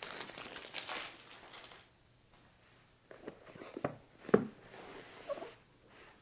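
Clear plastic shrink wrap crinkling as it is peeled off a small cardboard box for about two seconds. After a short quiet there are a few soft knocks as the box is set down and handled on a felt desk mat, the sharpest one about four seconds in.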